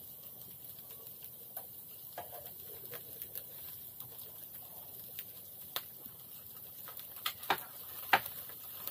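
Thick pork belly sizzling on a wire-mesh charcoal grill over flaring coals, with scattered crackles. A few louder, sharp clicks come about seven to eight seconds in, as metal tongs turn the meat on the grate.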